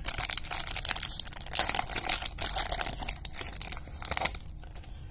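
Wrapper of a 2021 Topps Series 1 baseball card pack being torn open, with dense crinkling that stops a little before the end.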